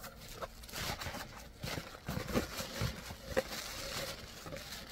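Tissue paper rustling and crinkling as hands dig through a packed box, with scattered small clicks and crackles.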